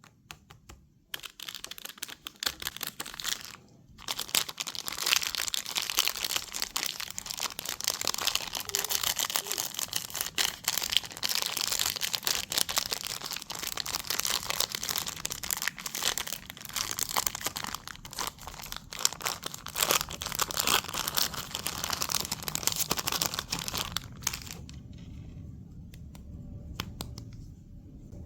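Candy packaging being torn open and crinkled by hand: a dense run of crackles with a short pause near the start. It drops away to quiet near the end.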